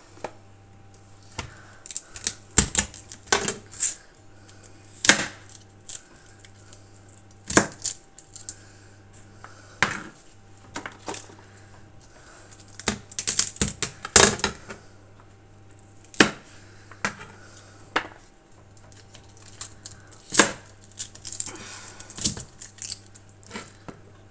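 Chef's knife tapping and scraping on a plastic cutting board while garlic cloves are trimmed and peeled: irregular sharp clicks, some in quick clusters, over a faint steady hum.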